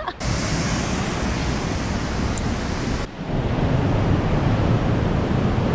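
Steady rush of whitewater from the Merced River below Vernal Fall. It breaks off about three seconds in and comes back louder and deeper.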